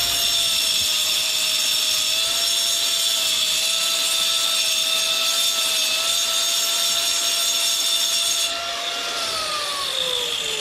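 Ridgid angle grinder running at full speed, grinding a lump off the edge of a manufactured stacked-stone veneer piece so it scribes to a tight fit. The grinding noise stops about eight and a half seconds in, and the motor's whine then falls as the disc spins down.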